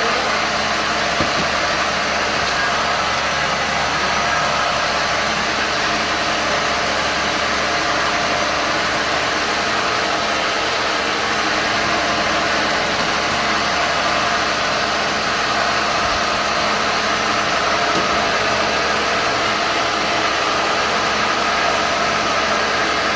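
Cotton candy machine running at a steady speed: a constant motor hum with a rushing noise that holds level, without starts or stops.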